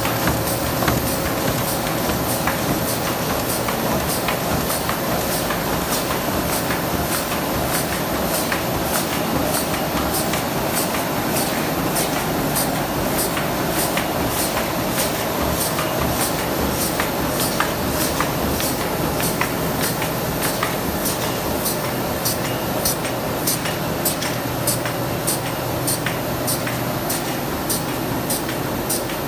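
YW-1150E automatic paper embossing machine running: a steady mechanical hum of rollers and conveyor with a fast, regular ticking as sheets are fed through.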